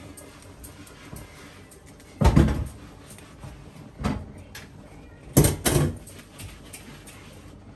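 Dull knocks and thumps of a stainless steel mixing bowl being handled as dumpling dough is worked in it by hand: one heavy thump about two seconds in, another at four seconds, and a quick double knock about five and a half seconds in.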